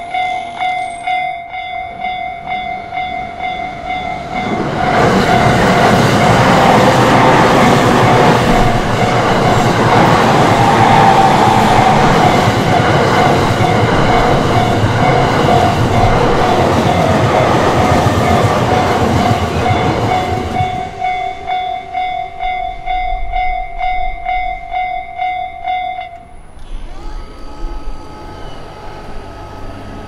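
Japanese level-crossing warning bell ringing in a fast, even repeating ding. About four seconds in, a JR Utsunomiya Line commuter train passes over the crossing, loud for about sixteen seconds with wheels clattering on the rails, then fades. The bell stops near the end.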